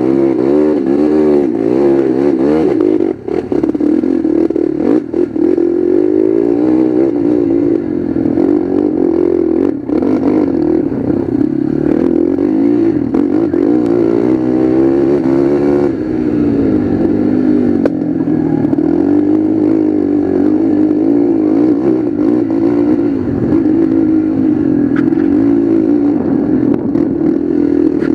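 Sport 4x2 quad (ATV) engine ridden hard on a muddy race track, its pitch rising and falling continually with the throttle, with rattles and knocks from the machine over the ruts, mostly in the first ten seconds.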